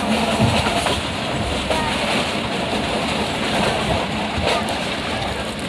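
Steady running noise of a moving passenger train heard from on board, the wheels rolling on the rails with a few faint clicks.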